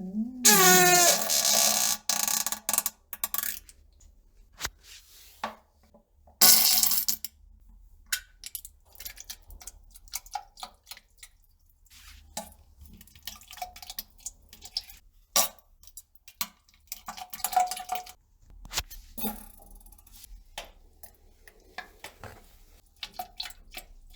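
A pitched fart about half a second in that runs straight into a longer, noisy blast of about two and a half seconds, and a second short, noisy fart burst about six seconds later. Between and after them come scattered small clicks and taps.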